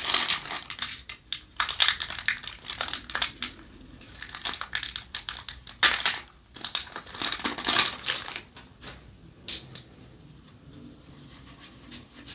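Foil booster-pack wrapper of Yu-Gi-Oh! cards crinkling and crackling as it is torn open and crumpled by hand, in repeated bursts that die away about nine or ten seconds in.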